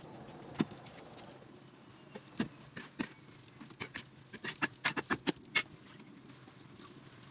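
Metal spatula knocking and scraping against a metal wok while stirring pancit noodles: a quick, uneven run of sharp clicks, densest from about two to five seconds in, over a faint steady background.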